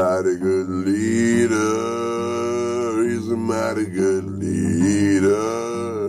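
A man singing a gospel song in long, drawn-out notes, accompanying himself on acoustic guitar.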